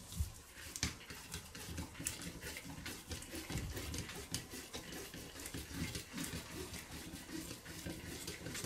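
A large screwdriver turning a screw into a Solex 34 PICT carburetor body, running it in until it bottoms out: a steady run of small metal clicks and scrapes.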